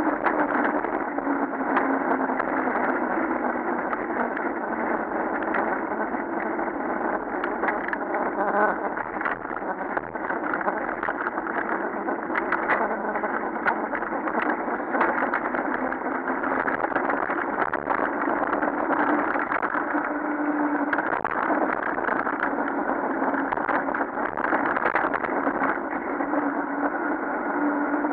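Wind rushing over the microphone as a mountain bike descends fast on asphalt, with frequent small rattles and knocks from the bike over the road surface and a faint hum that comes and goes.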